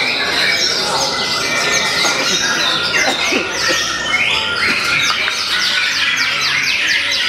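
Several caged white-rumped shamas (murai batu) singing at once, a dense mix of loud whistles and chattering phrases; from about five seconds in, a fast run of short, falling notes.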